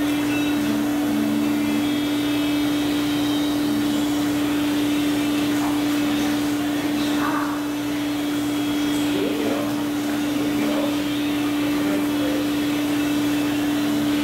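Hydrotherapy pool's pump or jet motor running steadily: a constant drone with one strong low tone over a rush of moving water.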